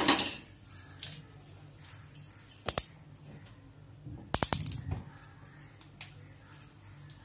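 A steel kadhai clanks as it is shifted on the gas stove's grate at the start. About four seconds in, a handheld gas lighter clicks several times in quick succession at the burner as the gas is lit.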